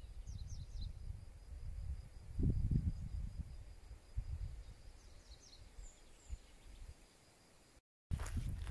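A few short, high bird chirps near the start and again about five to six seconds in, over a low, uneven rumble of wind on the microphone.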